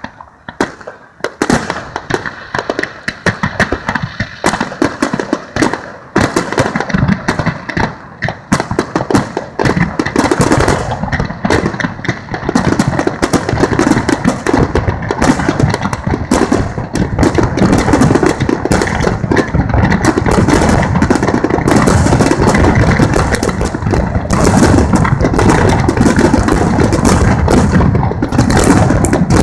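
Fireworks display: many aerial shells bursting in quick succession, the bangs growing louder and closer together until they merge into a near-continuous barrage in the second half.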